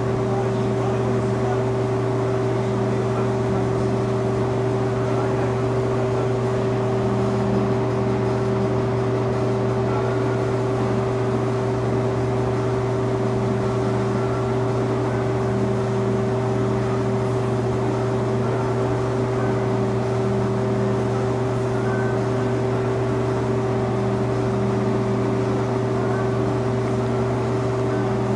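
Steady machinery hum with several constant pitches over an even hiss, unchanging throughout.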